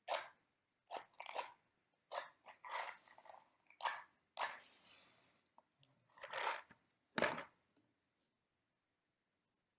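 Matches being struck on the side of a matchbox to light a candle: a string of short, dry scrapes, some longer than others, that stops about eight seconds in.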